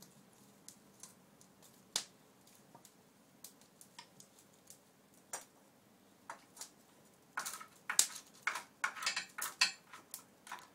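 Sharp crackles and pops from an open wood fire with chestnuts roasting in a pan over it: scattered single clicks at first, then a dense run of louder crackling about seven to ten seconds in.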